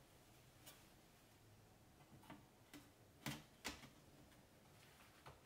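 About half a dozen faint clicks and light taps as the aluminium bottom cover of an Asus UX31E laptop is set onto the chassis and pressed into place along its edges, the two strongest a little past three seconds in.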